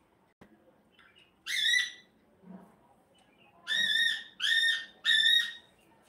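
Rose-ringed (Indian ringneck) parakeet giving loud, shrill squawks. There is one call, then after a pause three more in quick succession.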